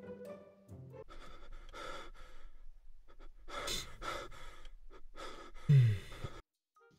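A person's breathy sighs and exhales, with a short, loud vocal sound that falls in pitch near the end before it cuts off.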